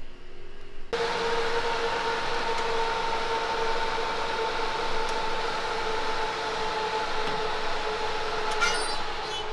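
Convection oven's fan running with the door open: a steady hum with two held tones that starts about a second in. A brief faint scrape comes near the end.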